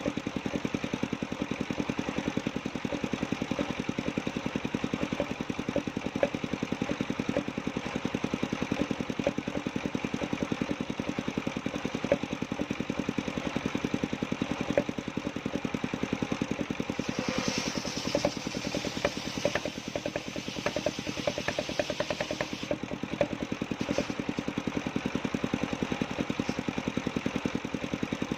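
The engine of a portable circular sawmill running steadily with rapid, even firing pulses. Past the middle, a higher hiss joins for about five seconds as the saw blade cuts through the coconut log.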